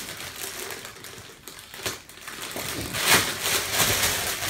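Gift wrapping paper being torn and crinkled by hand as a present is unwrapped, in irregular rustles that get louder about three seconds in.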